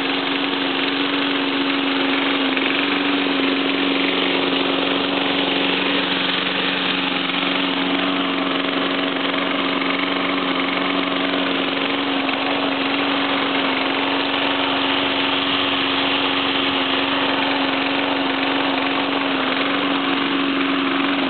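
Old Sensation rotary push lawn mower's small engine running steadily at a constant speed, running smoothly.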